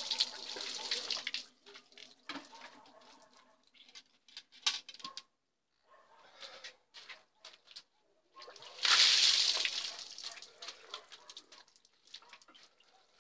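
Ice-cold water poured from a bucket over a person, a loud splashing rush about nine seconds in that fades over a second or two. Before it, the last of an earlier pour runs off and fades, then scattered small clicks and knocks from handling buckets.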